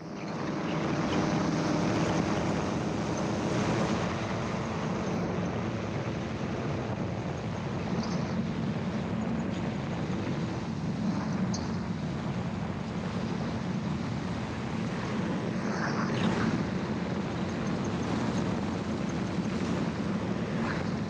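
Gyroplane engine and pusher propeller opening up to full power at the start, then running steadily through the take-off run and climb-out.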